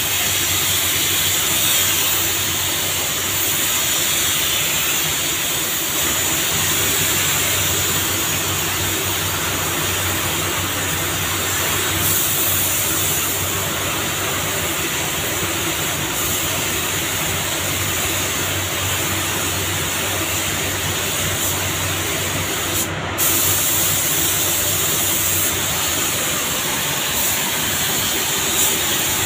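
Steady hiss of compressed air through a gravity-feed paint spray gun as it sprays paint onto a car's fender and bumper, with a low hum underneath. The hiss breaks off for a moment about three-quarters of the way through.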